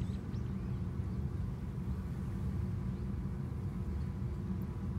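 Steady low outdoor rumble, with a few faint high chirps just after the start.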